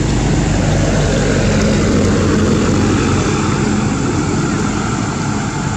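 An engine running steadily with a continuous low hum and noise, like a motor vehicle idling.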